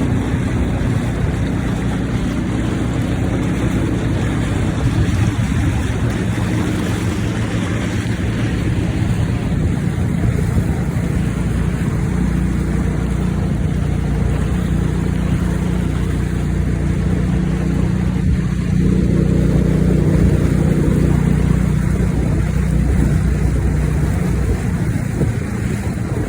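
Motorboat engine running steadily with a low hum, getting a little louder and busier for a few seconds past the middle.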